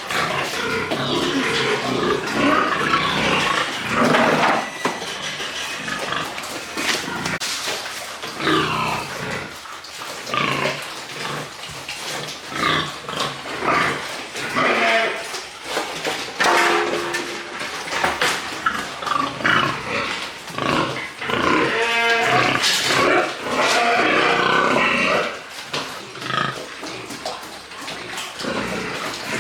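Piglets calling over and over: many short calls follow one another and overlap, some of them high-pitched.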